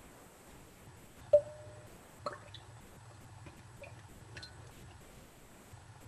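Spoonfuls of olive oil going into a glass mixing bowl, with a few light taps of a metal measuring spoon against the glass. The loudest is one short ringing clink about a second in, and another tap follows about a second later.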